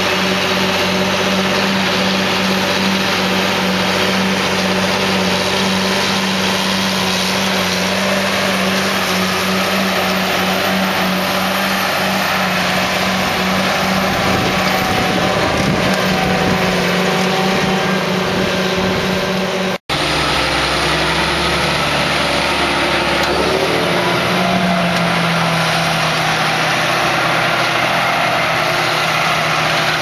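John Deere tractor's diesel engine running steadily under load as it pulls a digging blade through dry soil, a constant low engine hum. The sound drops out for an instant about two-thirds of the way through and then carries on at a slightly different pitch.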